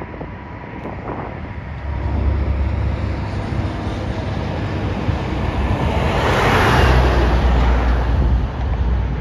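A vehicle passing close by, its noise building to a peak about seven seconds in and then fading, over a low wind rumble on the microphone.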